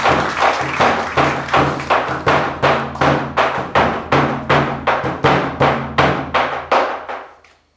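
A drum beaten steadily with a stick, about three strikes a second, dying away near the end.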